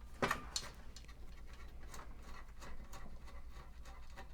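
Light metallic clicks and taps of a PC case's sheet-metal motherboard tray being handled while its ground wire is worked free. Two sharper clicks come near the start, then faint scattered ticks.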